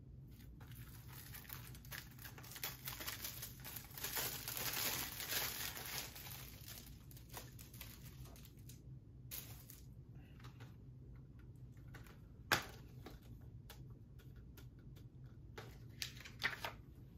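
Thin plastic shrink wrap crinkling and tearing as it is peeled off and crumpled from a Blu-ray case. A single sharp click comes in the middle, and a few more clicks near the end as the plastic Blu-ray case is handled and snapped open.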